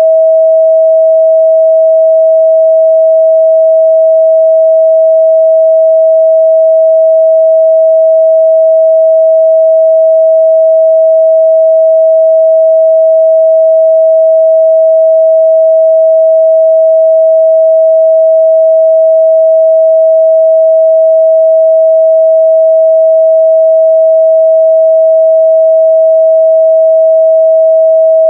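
A steady, loud 644 Hz sine-wave test tone, one pure pitch held without change.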